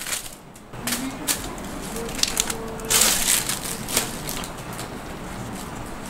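Clear plastic wrapping crinkling and rustling as a rolled-up mousepad is pulled out of it, in several irregular bursts, the loudest about three seconds in.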